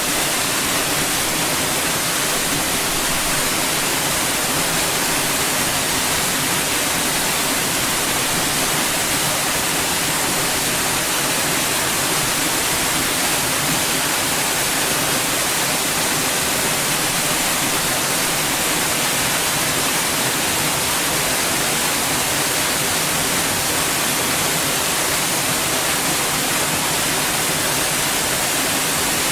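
White noise: a steady, even hiss spread across all pitches, brightest in the highs, unchanging throughout.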